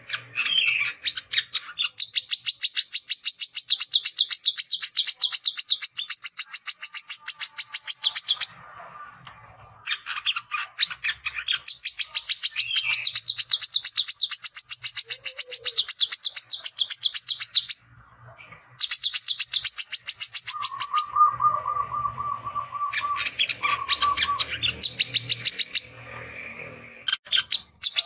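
Male brown-throated sunbird (wiceh, kolibri kelapa) singing a rapid, high-pitched trilling chatter in long runs of several seconds, broken by two short pauses, with a lower drawn-out note about two-thirds of the way through. This fast chatter is the male's challenge call, seeking a rival to fight.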